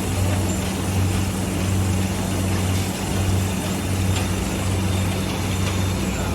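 Automatic folder-gluer for PET plastic boxes running: a steady low machine hum that swells and fades about once a second, over a constant wash of mechanical noise.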